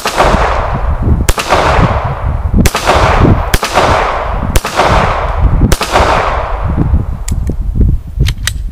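Six shots from a Stallard Arms JS-9 9mm pistol, about a second apart, each followed by a long echoing tail. A few light clicks come near the end.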